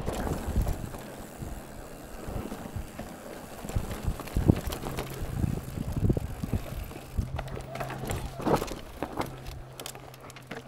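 Mountain bike being ridden over a rough trail: irregular knocks, thumps and rattles from the bike bouncing over bumps, with the two strongest jolts about four and a half and eight and a half seconds in. A steady low hum runs underneath and breaks off now and then, with wind on the microphone.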